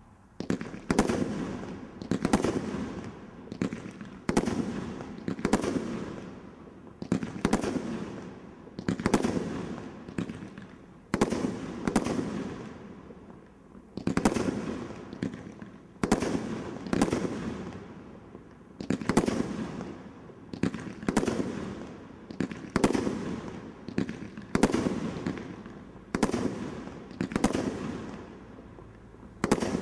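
Brothers Magical Palms 30-shot barrage, a Category 3 combination roman candle, firing shot after shot at about one shot a second. Each shot is a sharp bang that trails off as it fades.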